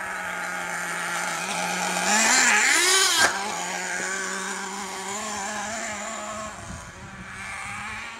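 Small nitro engine of an HPI Firestorm radio-controlled truck running, revving up in rising and falling swells about two seconds in. The loudest stretch ends in a sharp knock a little after three seconds, then the engine runs on more steadily and grows fainter near the end.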